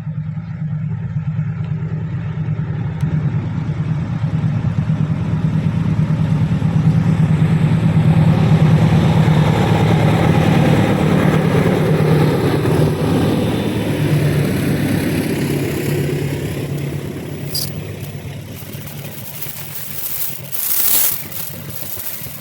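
Diesel locomotive engine running with a steady low drone as a train goes by on the rails. It grows louder toward the middle and then fades. There are a few sharp metallic clatters near the end.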